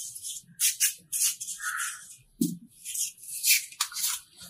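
Hands breaking apart and crumbling a soft pressed block of pink rangoli powder: a run of short, dry, crisp crackles and crunches, loudest around the middle and again near the end.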